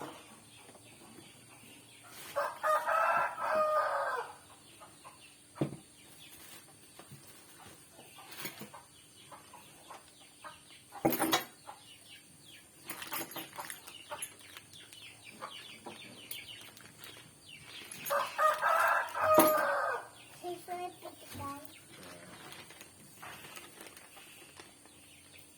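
A rooster crowing twice, each crow about two seconds long, the calls some fifteen seconds apart. Scattered light knocks and clicks come in between.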